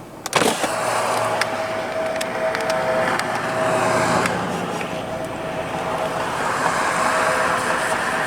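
Freight train approaching at speed behind a Union Pacific SD70AH locomotive: a steady rushing noise with a held tone over it, which drops out for about a second near the middle.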